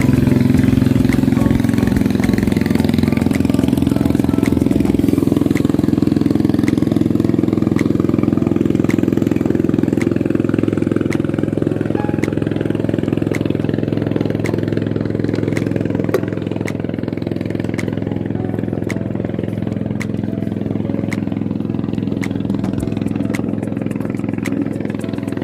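A small engine running steadily at an even speed, with faint clicks through it.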